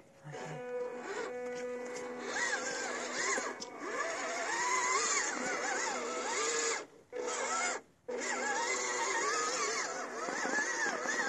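Background music with a wavering melody, broken off twice for a moment near the middle.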